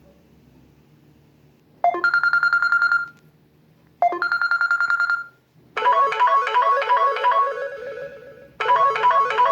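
Samsung Galaxy S4 stock ringtones: a fast trilling electronic ring sounding twice in bursts of about a second, then a different melodic ringtone, a short phrase of quick notes that starts over about three seconds later.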